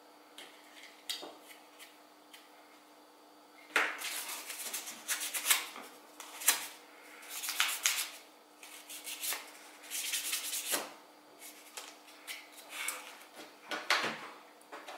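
A kydex sheath being rubbed and scraped by hand in short, irregular strokes, starting about four seconds in, with small handling knocks.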